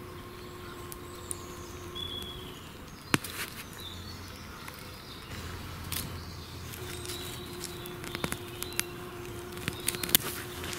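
Small multitool blade cutting and digging into forest soil and leaf litter around a sapling's root, giving scattered crunches and sharp clicks, busiest near the end. A few short bird chirps in the background.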